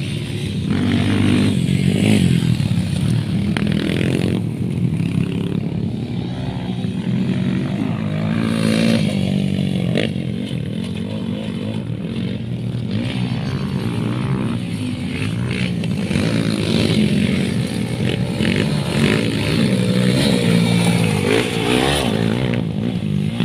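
Motocross dirt bike engines revving hard, the pitch repeatedly climbing and dropping as the bikes accelerate and shift around the track.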